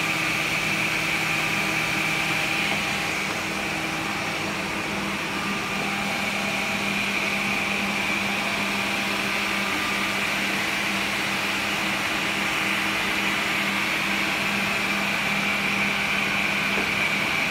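S8 S368 automatic edge banding machine running at idle: a steady motor hum with a high whine over it.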